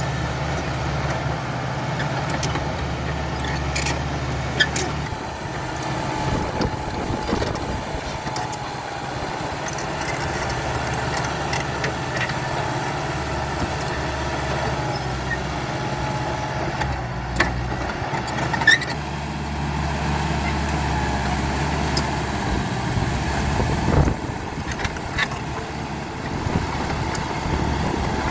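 Caterpillar D5K XL bulldozer's diesel engine running steadily, its note swelling and easing as it works, with a few sharp knocks scattered through.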